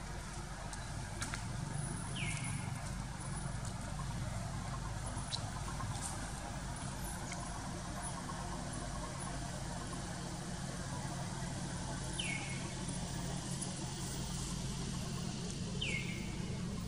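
A steady low hum like an engine running at a distance, under a faint hiss. Three short, high chirps each fall quickly in pitch: one about two seconds in and two near the end.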